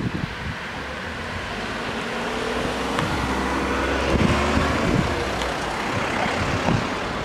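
A motor vehicle running and passing, a steady rushing engine and road noise that swells to its loudest a little past the middle and then eases off.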